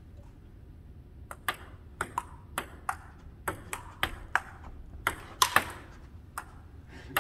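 Table tennis rally: the ping-pong ball clicking off the paddles and bouncing on the table, a quick string of sharp ticks about two or three a second, starting about a second in.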